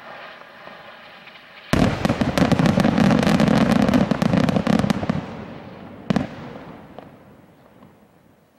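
Fireworks from a large truff pyrotechnic tower: a steady hissing with a faint whistle, then about 1.7 s in a sudden dense volley of rapid crackling bangs for about three seconds. One more sharp bang comes near 6 s, and the sound then fades away.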